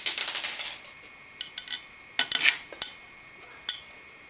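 Small metal clinks and clicks as a CPU cooler backplate's bolts are handled and pushed through the motherboard's mounting holes: a quick cluster at the start, then short scattered groups of clinks.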